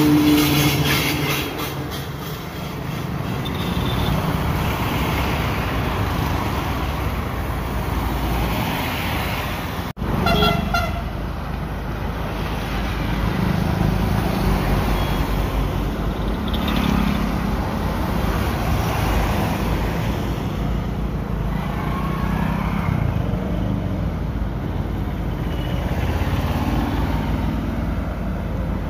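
Traffic passing on a rain-wet road: trucks, buses and autorickshaws run by with engine and tyre noise, and a vehicle horn sounds right at the start. The sound drops out briefly about ten seconds in.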